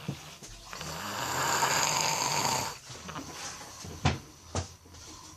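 A sleeping person snoring: one long, rough snore lasting about two seconds, then two short, sharp sounds about half a second apart.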